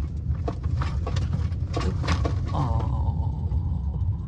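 Car rolling slowly along a rough dirt track, with a steady low rumble and repeated small knocks and crunches from the tyres. A wavering tone sounds about two-thirds of the way in and holds to near the end.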